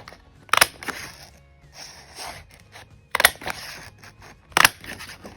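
Scalloped-edge square craft hole punch pressed down through patterned paper: three sharp clacks, with paper sliding and rustling between them.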